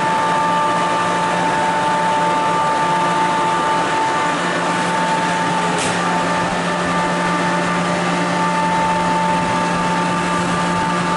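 Kaohsiung MRT metro train standing at the platform with its doors closed, its onboard electrical equipment giving a steady hum with a high whine over it, and a faint click about six seconds in.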